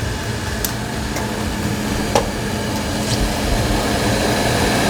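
Steady kitchen hum and hiss, with a few light clicks of cookware being handled.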